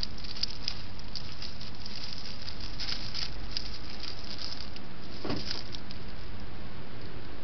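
Hedgehog pushing out of its nest of dry grass and leaves: quick, crackly rustles, busiest in the first few seconds, with one heavier scuff about five seconds in.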